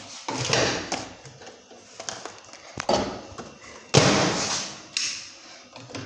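Kitchen handling noises as noodles are readied for a microwave: a series of knocks and scraping sounds, loudest about four seconds in, then a sharp click about a second later, like a microwave door shutting.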